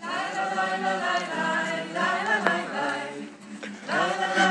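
A group of voices singing a song together, holding long notes in phrases that start afresh about two and four seconds in.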